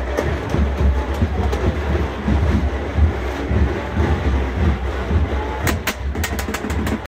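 Chenda melam procession drums beating heavily amid a dense crowd, with a deep low rumble, then a quick run of sharp clicks near the end.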